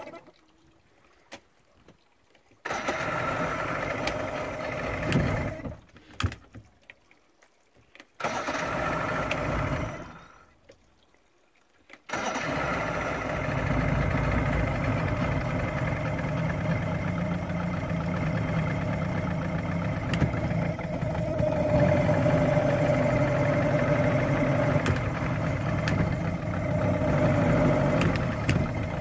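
Johnson V4 two-stroke outboard motor running in two short stretches of a few seconds each, broken by near silence with a few clicks, then running steadily from about twelve seconds in.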